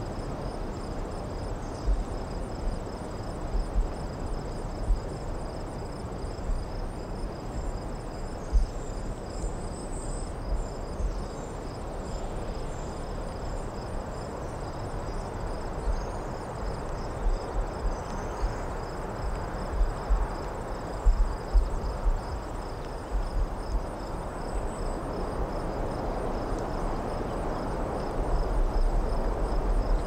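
Crickets chirping in a steady, high, evenly pulsing trill over a low, even rumble of distant road traffic, which swells in the last few seconds. Occasional low thumps break through.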